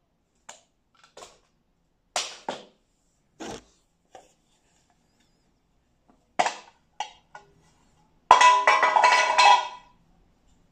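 Sharp clicks and knocks of small plastic packaging being handled, as a clear plastic box is opened. Near the end comes the loudest sound, a dense rattling clatter with a ringing tone that lasts about a second and a half.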